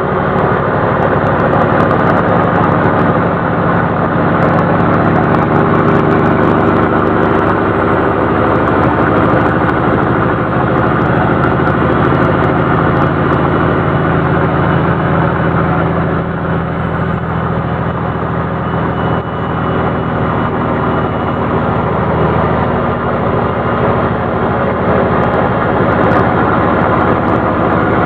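Diesel engine of a 1980 Kenworth truck running steadily under way, heard from inside the cab; its pitch shifts about halfway through.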